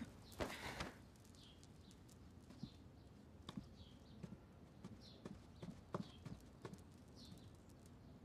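Faint footsteps on a wooden floor, soft taps roughly once a second, after a brief rustle near the start. Faint high chirps repeat in the background.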